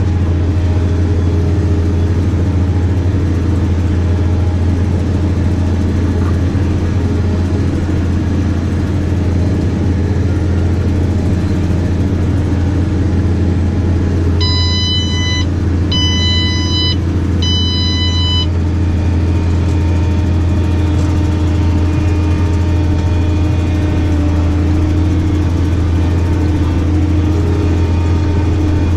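New Holland tractor engine running steadily as the tractor drives across rough ground, heard inside the cab as a deep, even drone. About halfway through, three electronic beeps sound in the cab, each lasting about a second.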